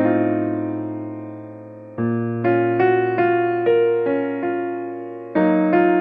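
Background piano music: soft electric-piano chords, one chord held for about two seconds and then a run of notes struck about twice a second.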